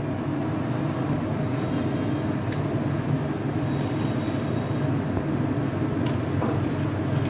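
A steady low hum runs under the soft rustle of salted, chopped radish greens being squeezed and kneaded by hand in a steel colander, with a few faint light clicks.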